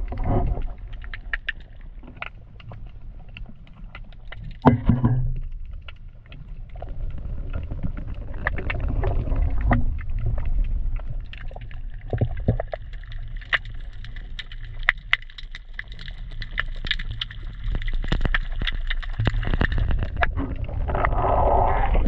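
Water heard through an action camera's waterproof housing held underwater: a steady muffled low rumble with scattered clicks and crackles, and a louder thump about five seconds in. Near the end it turns to splashing as the camera breaks the surface.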